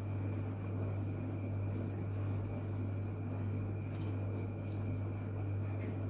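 Steady low hum, with a few faint soft clicks and scrapes from hands and a knife peeling a fleshy snake plant leaf.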